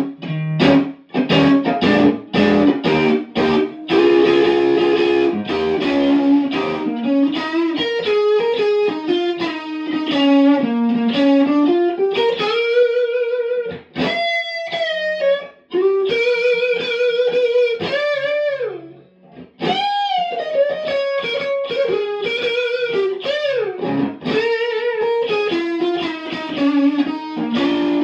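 Electric guitar played through a 2009 Fender Super-Sonic 60-watt tube amplifier, newly repaired and rebiased: blues that opens with short chord stabs and moves into single-note lead lines with string bends and vibrato.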